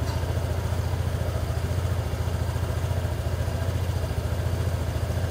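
Honda SH 125i/150i scooter's single-cylinder four-stroke engine idling steadily, warmed up past 60 °C, during an idle-mode exhaust emission test.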